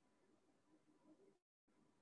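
Near silence: faint background hiss, with a brief total dropout about one and a half seconds in.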